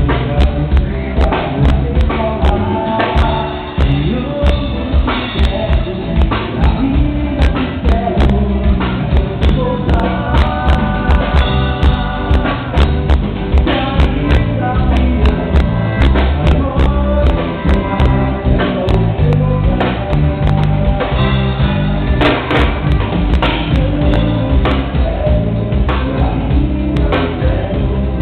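A band playing with a drum kit keeping a steady beat and a voice singing; the sound is dull, with no highs, as in a low-quality recording.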